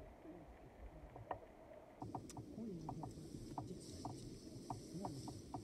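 Faint, muffled voices talking quietly, with a scatter of short light ticks starting about two seconds in.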